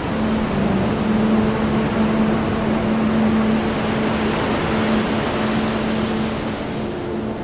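Sea surf breaking and rushing onto a pebble beach, under background music holding long, slowly changing notes.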